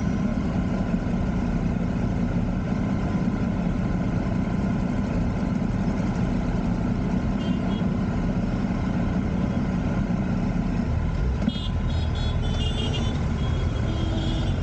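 Engines idling in stopped city traffic: a motorcycle, a Triumph Street Triple RS, with an auto-rickshaw idling alongside, a steady low hum. About eleven seconds in the sound shifts as traffic starts to move, with a few short high beeps after it.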